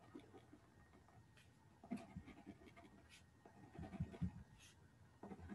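Faint scratching of a marker colouring small ovals on paper, in short irregular strokes.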